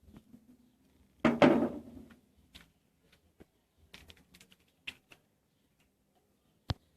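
Handling noises: a knock with a short rattle about a second in, then a scatter of small light clicks and one sharp click near the end.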